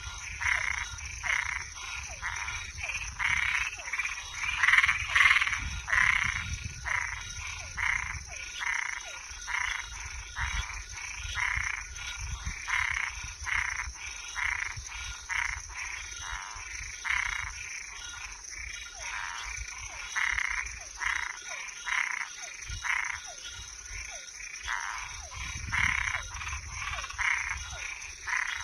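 Frogs and treefrogs calling together at night, short calls repeating about twice a second without a break, over a steady high-pitched insect drone.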